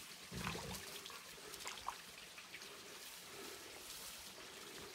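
Faint trickling and dripping water, with scattered small clicks and a dull thump about half a second in.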